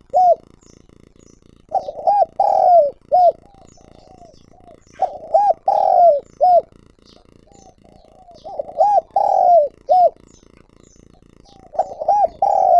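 Spotted dove singing its calling coo: each phrase is a few short coos and one longer drawn-out coo, repeated about every three and a half seconds, three full phrases with a fourth starting near the end. Faint high chirps of small birds between the phrases.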